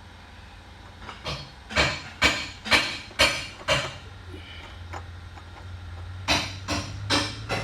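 A series of sharp metal-on-metal taps with a short ring after each, about two a second: six in a row, a pause of about two seconds, then four more. The taps come from work on a Pontiac 8.2 rear differential during a Powertrax locker install. A steady low hum runs underneath.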